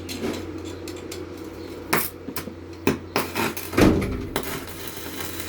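Hammer knocking on steel: four sharp strikes at uneven intervals, the loudest about four seconds in, over a steady low hum.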